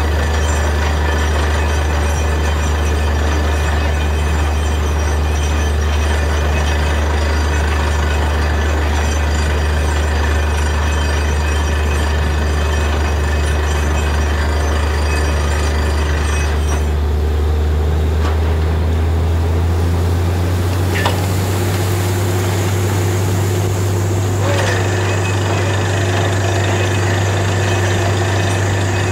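Truck-mounted borewell drilling rig running loudly and steadily, its engine and compressor giving a deep, constant hum while it drills and blows mud and water out of the hole. The machinery's note shifts about two-thirds of the way through.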